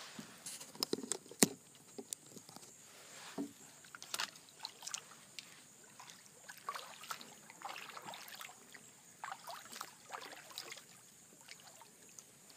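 Kayak easing slowly into brush at a creek bank: paddle water trickling and dripping, with scattered knocks and scrapes on the hull, the loudest a sharp knock about a second and a half in.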